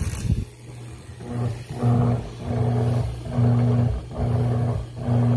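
Laundry Alternative Poseidon washer's agitator running dry in an empty tub, with no water or clothes. After a click of the timer knob near the start, the motor hum comes in about a second in and runs in even back-and-forth strokes, about one every three-quarters of a second.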